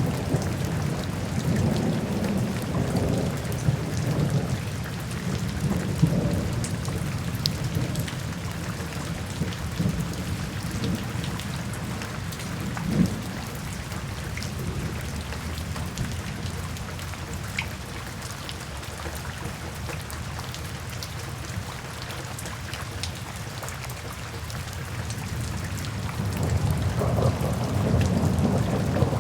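Steady rainfall with scattered drop ticks, under low rumbling thunder that is strong at first, fades away through the middle and rolls back in near the end.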